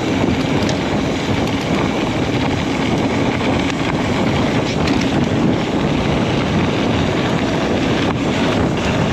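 Mountain bike rolling fast down a dirt and gravel track: steady wind rush on the camera's microphone over the tyres crunching on the gravel, with a few small clicks and rattles from the bike.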